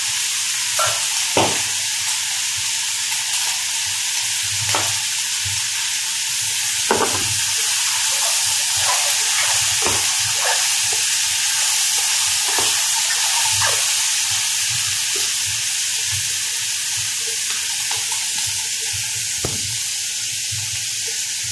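Cucumber, shiitake mushroom and bell pepper sizzling steadily in a stainless steel frying pan as they are stir-fried, with irregular knocks and scrapes of a wooden spatula against the pan.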